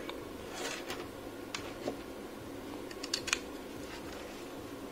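A few faint, light clicks and taps, small objects handled on a wooden workbench, over a steady low room hum.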